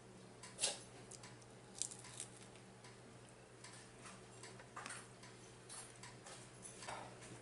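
A person chewing tacos up close: irregular soft crunches and mouth clicks, the sharpest a little under a second in and near the end. A low steady hum runs underneath.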